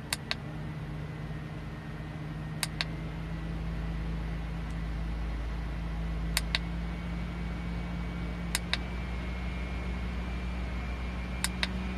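Car-mounted DC-motor fan running with a steady hum while its speed is stepped up one notch at a time from its remote. Five quick double clicks come a few seconds apart, and the hum and air noise rise a little after them.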